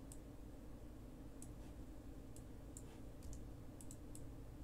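Faint clicks of a computer mouse, several of them at irregular intervals, over a low steady hum.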